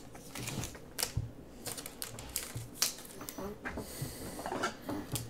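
Scattered light clicks and taps, with a brief soft slide about four seconds in: trading cards being handled and set down on a table.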